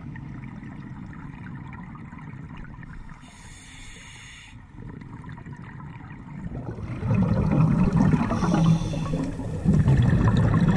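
Water and air bubbles heard underwater through an action-camera housing: a steady rushing hiss, turning into much louder gurgling bubble noise about two-thirds of the way in.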